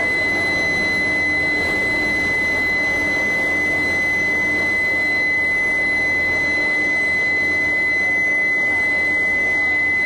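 Steady machinery noise at a steel mill's reheating furnace and billet roller table: a broad, even roar with a constant high-pitched whine running over it.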